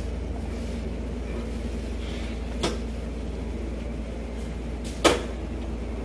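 Two sharp clunks, a lighter one a little before halfway and a louder one near the end, over a steady low rumble of street background.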